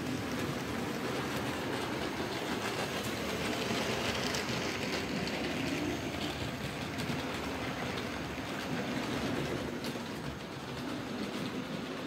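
Model trains running on a model railway layout: a steady rumble of wheels on track with faint clicks, loudest about four seconds in as two trains pass each other on neighbouring lines.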